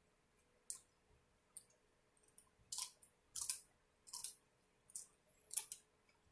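Eating sounds close to the microphone: a series of sharp, crisp mouth clicks while chewing, about eight in all, getting louder after the first couple of seconds.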